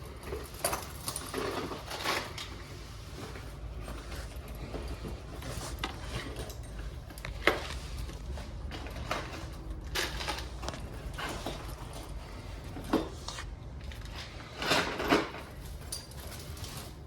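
Scattered clinks and knocks of tools and metal or plastic parts being handled while an air conditioner is taken apart, over a low steady hum.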